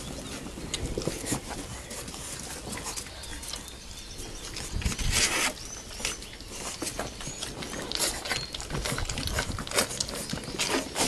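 Two-month-old French Bulldog puppies scuffling on a towel: paws pattering and scrabbling with small clicks, with a few faint squeaks and a louder rustle about five seconds in.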